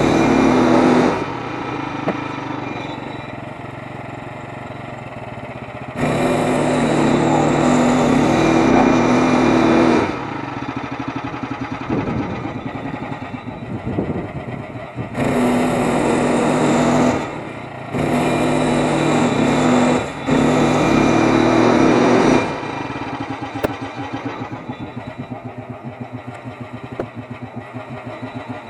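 Frontier OS23 portable bandsaw mill's small gasoline engine running, rising to full throttle for several cuts through a pine log and dropping back to a lower, pulsing run between them. It cuts off near the end.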